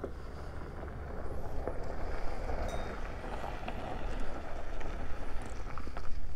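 Wind buffeting the microphone with a steady low rumble and gusty swells, growing louder near the end.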